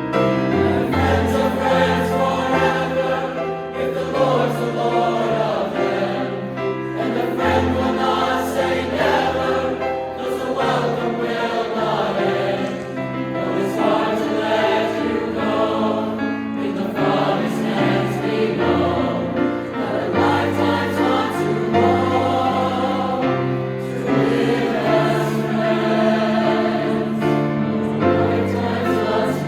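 Choir singing in harmony, a continuous sung passage with steady low notes beneath.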